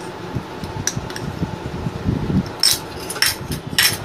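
Steel spoon clinking against small ceramic bowls as spices are scooped and tipped into a mixing bowl: a few sharp clinks, most in the second half, over a steady fan hum.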